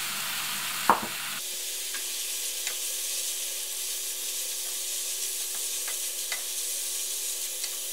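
Meat and grated carrot sizzling steadily as they fry in a non-stick frying pan, stirred with a wooden spatula. A sharp tap about a second in, and a few faint ticks later.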